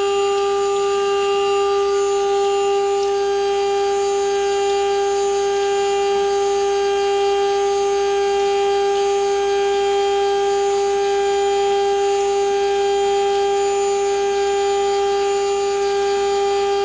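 1.5 kW water-cooled CNC spindle, driven by a Huanyang VFD, running unloaded at 24,000 rpm: a steady, even whine with several overtones above it.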